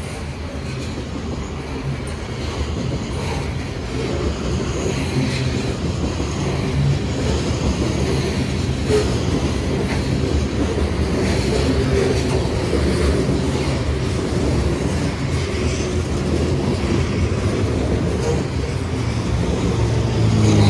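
Covered hopper cars of a freight grain train rolling past close by: a steady rumble of steel wheels on rail with repeated clacking as the wheels cross rail joints, growing louder over the first several seconds.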